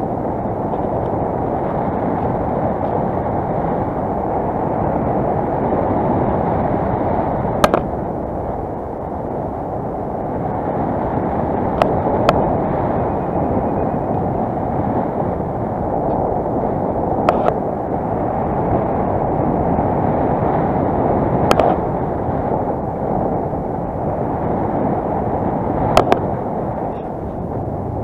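Steady rushing wind buffeting the microphone of a harness-mounted camera on a paraglider in flight. A few sharp clicks stand out now and then.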